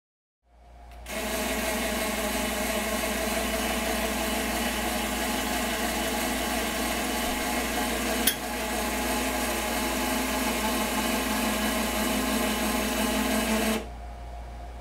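Electric drive motors of a motorized X-Y easel running steadily as they move a framed painting, a machine whine with a low hum under it. A single sharp click comes about eight seconds in, and near the end the motors stop, leaving a quieter hum.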